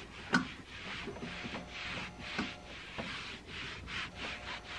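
A cloth wiping sticky adhesive residue off a heat press's metal upper platen, in quick back-and-forth scrubbing strokes, about two or three a second. There is one sharp click about a third of a second in.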